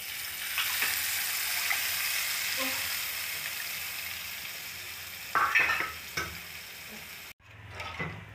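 Mustard seeds sizzling in hot coconut oil in a pan, a dense steady sizzle that slowly fades, with a couple of short knocks about five and six seconds in. The sizzle cuts off suddenly near the end.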